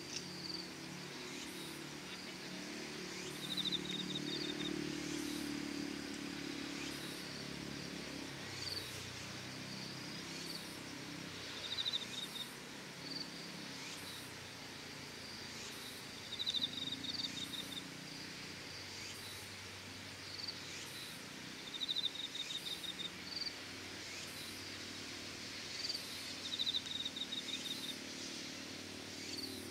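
Crickets or other insects calling: short pulsed trills, each under a second long, repeating every few seconds, with brief higher chirps between them. Under them runs a faint low rumble, strongest a few seconds in.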